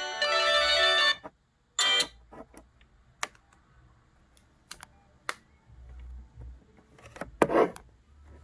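Samsung SGH-X497 ringtone melody playing through the phone's small speaker, stopping about a second in. After a short blip it gives way to scattered clicks, like keypad buttons being pressed to move to the next ringtone.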